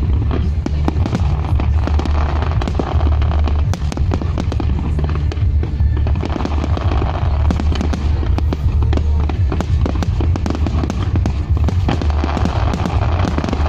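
Fireworks display: many shells bursting in quick succession with dense popping and crackling that swells and fades in waves, over a steady low rumble.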